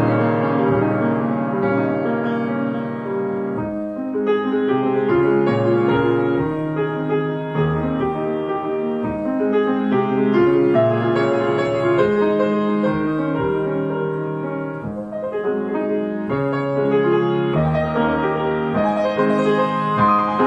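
Grand piano played solo: chords and a melody line, the notes changing roughly every half second to a second, with the playing softening twice before building again.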